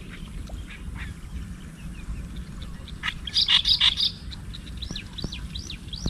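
A bird calling: a burst of loud, high chirps a little over three seconds in, then a run of quick arched call notes, about two a second, over a low steady rumble.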